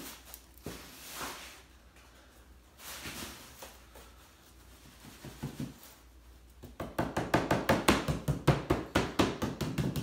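Hands patting and knocking on the bottom of an upturned beehive-lid mold to loosen the aircrete casting inside. Rapid knocks, about five a second, start about seven seconds in, after some rustling and bumping as the mold is turned over onto plastic sheeting.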